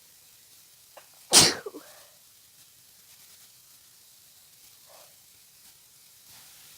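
A single sharp sneeze from a person with a head cold, about a second and a half in, with a brief catch of breath just before it.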